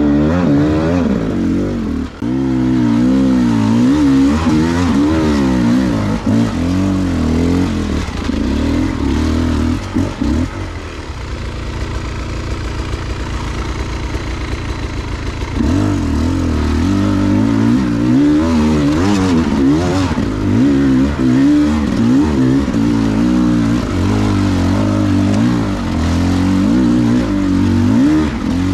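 Beta 300 two-stroke enduro motorcycle engine revving up and down in quick, uneven blips of the throttle. For a few seconds near the middle it settles to a steady low-rev run, then picks up and revs again.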